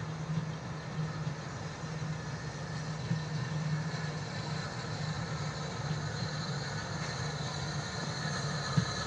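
Bulleid 'West Country' Pacific steam locomotive, a three-cylinder engine, working under steam as it approaches, its exhaust beating unevenly and slowly growing louder. One sharp click comes near the end.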